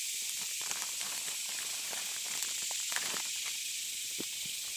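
Steady high-pitched drone of a cicada chorus, with a few faint scattered clicks and rustles.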